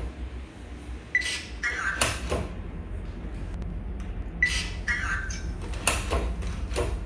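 Smart door lock giving a short electronic beep followed by a brief chirping prompt, twice; the second comes as an RFID key card is held to the reader and the lock unlocks. Sharp clicks of the lever handle and latch follow each beep.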